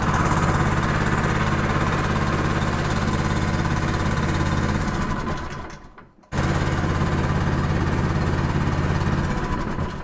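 Predator 212 single-cylinder engine running steadily, then dying away when the kill switch cuts it about halfway through. It is running again, then cuts out a second time near the end.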